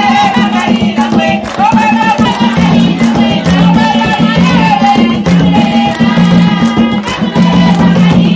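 Traditional Zambian kitchen-party music: women singing over tall wooden hand drums beaten in a steady, driving rhythm.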